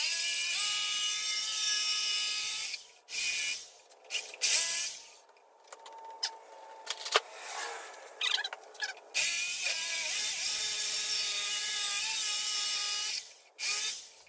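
Jigsaw cutting away a lip inside a subwoofer box, running in two stretches of about three and four seconds, with a pause and a few clicks between them.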